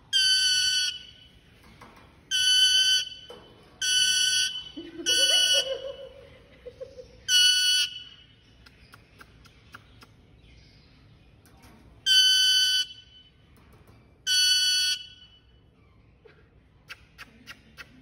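Alexandrine parakeet whistling seven loud, flat-pitched whistles, each about half a second to a second long and irregularly spaced. Every whistle holds one steady pitch.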